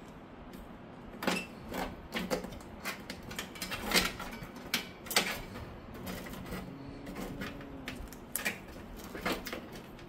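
Irregular sharp clicks and knocks, about a dozen, as cables and plastic connectors are handled and fitted inside a PC case during cable management. The loudest come around four and five seconds in, and there is a quieter stretch a little later.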